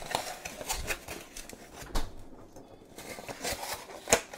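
Kitchen handling sounds of fetching an egg and setting it down on a tiled counter: scattered light clicks and knocks, with a sharp knock about two seconds in and the loudest click near the end.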